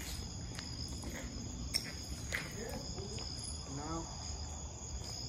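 Chorus of night insects, crickets, trilling steadily at two high pitches without a break, with scattered light clicks.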